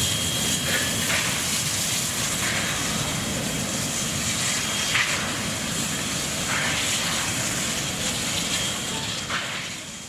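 Steam locomotive 5917 pulling away slowly: a steady hiss and rumble with a few soft chuffs a second or more apart, fading out near the end.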